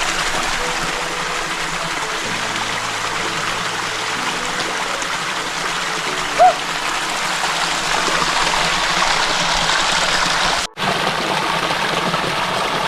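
Water running and splashing steadily down a small, low-flow waterfall and its stream. A single brief, sharp sound stands out about six and a half seconds in, and the sound cuts out for an instant near the end.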